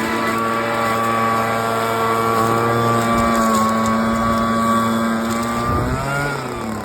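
Echo ES-250 Shred 'N' Vac's two-stroke engine running steadily at high throttle, its pitch dropping as it eases off near the end.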